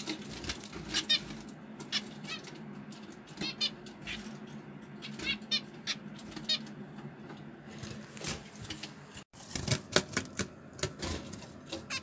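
Small cage birds, budgerigars or finches, giving short chirping calls several times, over scattered sharp clicks and knocks.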